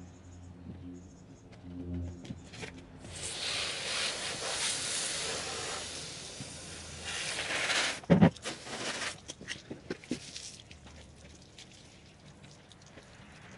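Hand car wash: water from a hose hissing onto the car for several seconds, then a single knock just after and scattered wet clicks and splashes.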